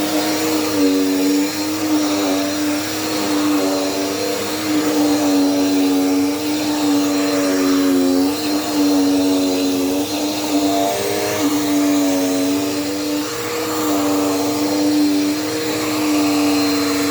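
Dirt Devil Power Max upright vacuum cleaner running while vacuuming, a steady motor whine over rushing airflow, its pitch dipping briefly every few seconds.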